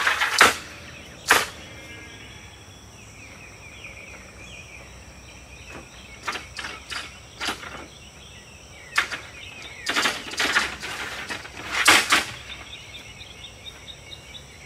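Sharp metal clicks and clanks from a manual RV awning's aluminium support arms and locks being released and handled, in scattered knocks with the loudest near the end. Birds chirp and insects hum steadily in the background.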